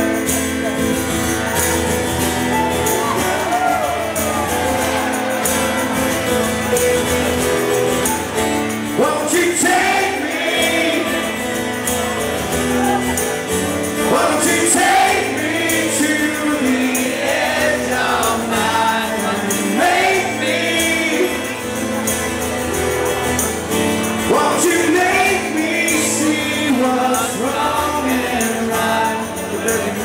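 Live band music: an acoustic guitar strummed over a band, with a man's lead vocal coming in about nine seconds in.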